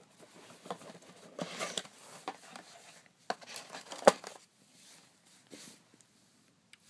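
Wand packaging being handled and opened: scattered rustling and crinkling with light clicks, and one sharp knock about four seconds in.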